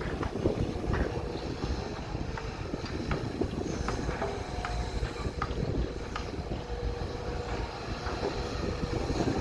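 Sumitomo SH210 hydraulic excavator's diesel engine running under load as it digs and lifts a bucket of dirt: a steady low rumble with scattered short knocks.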